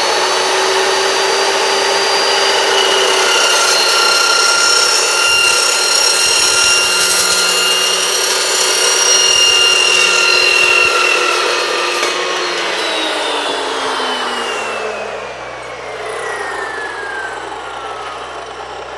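Evolution S355MCS 14-inch dry-cut metal chop saw running with a steady high whine while its blade cuts slowly through metal pipe at a 15-degree miter. About twelve seconds in, the trigger is let go and the motor winds down with a falling whine.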